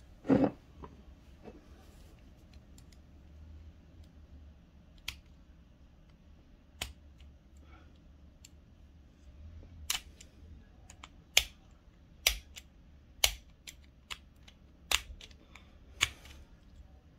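Scattered sharp clicks and taps of tools and small parts of a diecast toy car being handled during disassembly. One loud knock comes just after the start, and the clicks come more often and louder in the second half.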